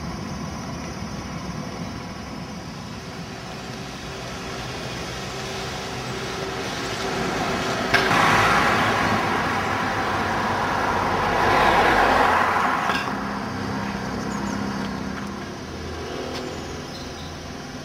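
Road traffic: a steady engine hum, then after a sharp click about eight seconds in, vehicles pass close by, swelling and fading twice, loudest about eight and twelve seconds in.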